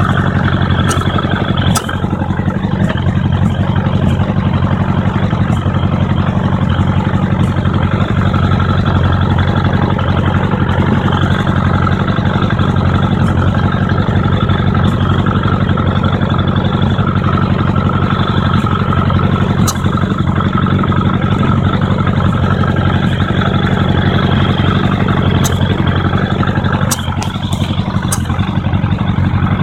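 Suzuki Bandit 1200 MK1's carburetted inline-four engine running at a steady speed, with sharp sneezes popping back through the intake several times: twice near the start, once about two-thirds through and a cluster near the end. The sneezes come from an air leak where a vacuum cap is missing on the second carburettor, which also makes the engine run badly.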